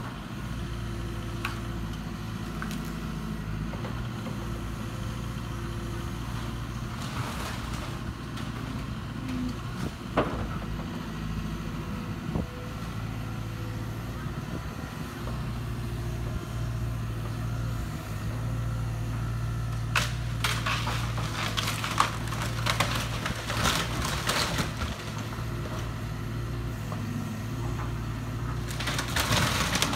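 Hyundai 140LC-9A excavator's diesel engine running steadily while it tears down a wooden shed, with clusters of wood cracking, snapping and splintering about two-thirds of the way in and again near the end, plus a few single knocks.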